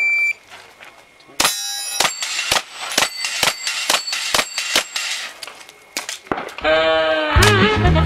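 A shot timer's short beep, then about a second later a rapid string of about a dozen pistol shots at steel plate targets, the plates ringing when hit. Music with a beat comes in near the end.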